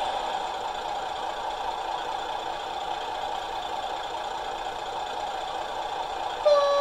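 Sound decoder in a model of the DB class 704 tower railcar playing a diesel engine idling steadily through the model's small speaker. Near the end a horn starts sounding.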